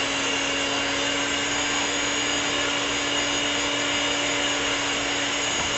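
Electric blender running steadily at full speed, its motor giving a constant whine over the churning of a cucumber and honey mix.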